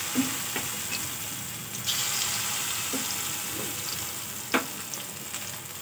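Battered chicken pieces deep-frying in hot oil in a kadai: a steady bubbling sizzle, with a few sharp clicks, the loudest about four and a half seconds in.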